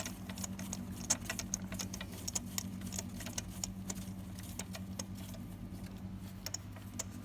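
Quick, irregular clicking of a ratchet and socket on an extension as a new spark plug is threaded in and snugged down, over a steady low hum.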